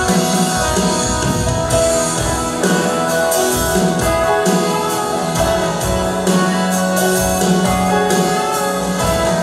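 Live worship band playing a praise song: electric keyboard and electric guitar with drums, and singers at microphones singing along.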